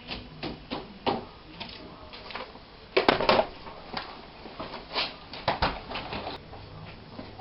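Irregular taps and clicks of hand tools being handled and knocked together, with a louder clatter about three seconds in.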